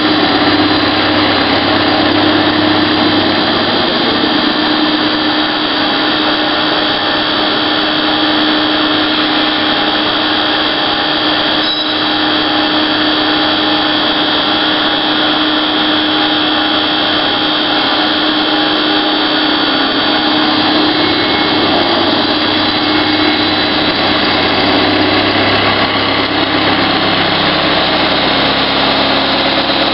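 Avantec EM90 milling cutter machining the webs of a steel crankshaft on a CNC machine: steady, loud metal-cutting noise with a constant hum from the spindle.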